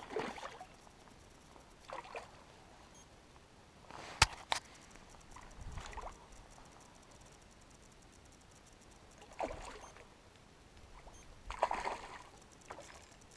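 Hooked salmon splashing and thrashing at the water's surface in several short separate bursts as it is played on a spinning rod. A sharp click, then a second one, about four seconds in.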